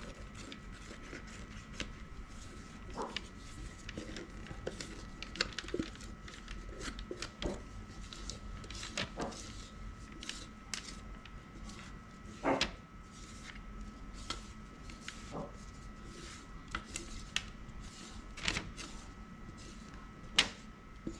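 Scattered light taps, scrapes and soft knocks of thick pancake batter being poured and scraped out onto a parchment-lined thin sheet pan, with a faint steady high tone underneath.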